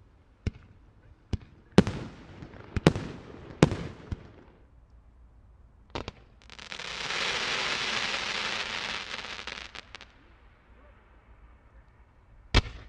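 Fireworks: a string of sharp bangs from bursting shells in the first four seconds, the louder ones trailing off, and another about six seconds in. Then a steady hissing rush lasts about three and a half seconds as a low fan of gold stars is fired from the ground, and one more loud bang comes near the end.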